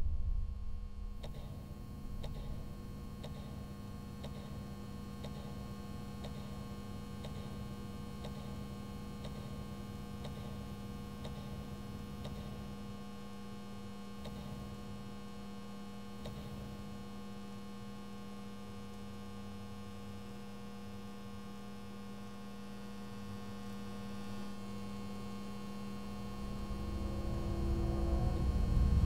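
Steady electrical hum, a low drone with fainter higher tones above it. A low rumble swells in near the end.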